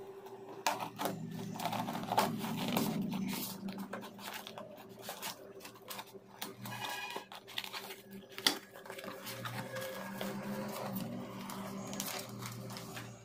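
Cardboard shipping box being opened by hand: packing tape slit with a knife, then the cardboard handled and white paper packing rustled and pulled out near the end, in irregular scrapes and clicks. A steady low hum runs underneath.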